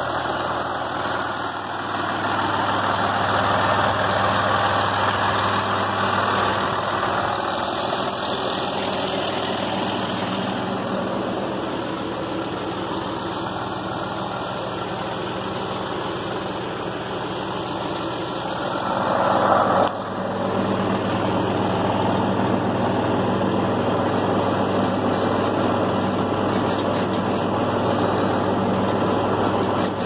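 Case International 495 tractor's diesel engine running steadily, with a brief louder swell and a change in its note about two-thirds of the way through.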